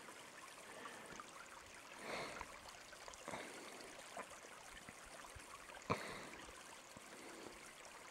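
Faint, steady outdoor background hiss, with a few soft rustles and a sharper click about six seconds in.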